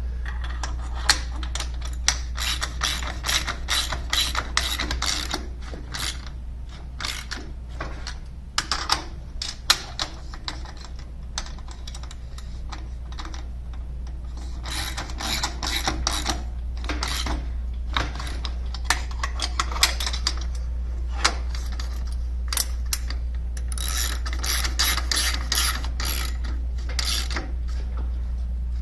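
Socket ratchet clicking in quick runs with short pauses between, as the stainless steel nuts are tightened down until the lock washers flatten. A low steady hum runs underneath.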